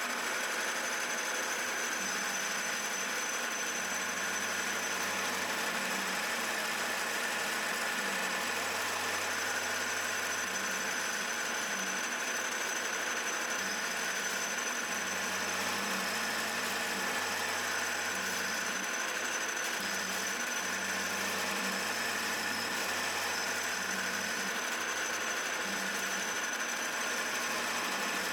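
CNC-converted milling machine running: steady machine noise with a thin high-pitched tone, and a lower hum that comes and goes as the machine works.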